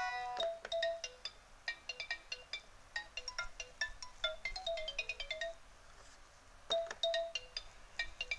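Baby toy music player (toy boom box) playing an electronic melody of short, quick beeping notes. The melody breaks off for about a second past the middle, then starts up again.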